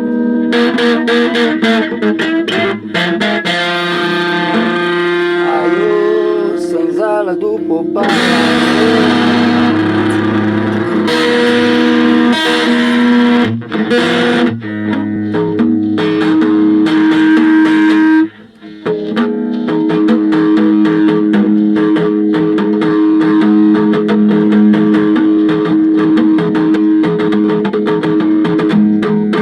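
Electric guitar-bass hybrid played through effects with some distortion: plucked and strummed notes and chords ringing on, with a short break in the playing about two-thirds of the way through.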